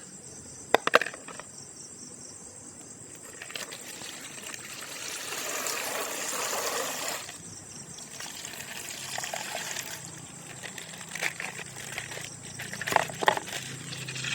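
A plastic ice bag of coloured water being burst and the water pouring and splashing out, followed by crinkling and tearing of the plastic. There are a few sharp clicks about a second in and again near the end, with the rush of water in the middle.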